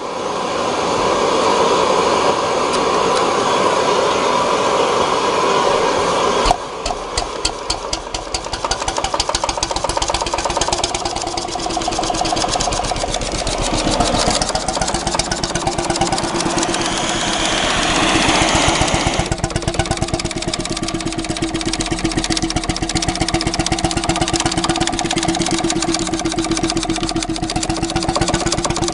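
Circa-1930 Petter S-type two-stroke semi-diesel stationary engine running, firing with a rapid, even beat. For the first six seconds a loud, steady rushing noise covers it, then cuts off abruptly.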